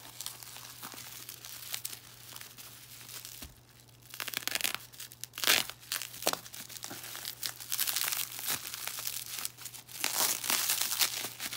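Plastic wrap and foil packing being torn and crinkled by hand. The crackling is light at first, dips briefly, then grows louder and sharper from about four seconds in.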